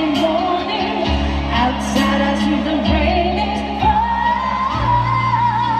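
A woman singing a slow freestyle ballad live into a microphone, with long held keyboard and bass notes from the band, heard over the arena sound system from within the crowd.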